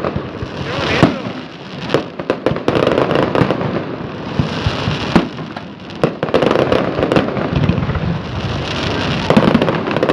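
Fireworks display going off in quick succession: dense crackling and popping, with single louder bangs about a second in and again about five seconds in.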